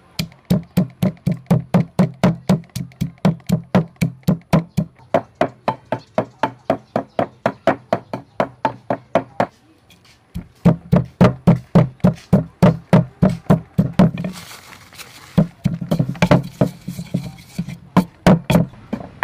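Wooden pestle pounding red chilies in a wooden mortar: steady knocks about four a second, stopping briefly a little before halfway. A short rustling hiss comes about three-quarters of the way through, and the pounding then resumes.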